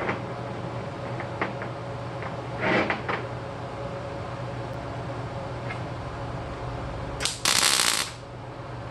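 MIG welder laying a single short tack weld near the end: a brief arc strike, then about half a second of crackling arc that cuts off abruptly. Earlier, a few light clicks and a short scuff as the steel part is handled on the bench.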